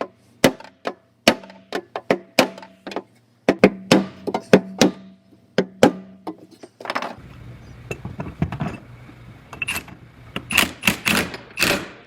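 Background music with a string of sharp knocks and hits, the held tones dropping out about seven seconds in.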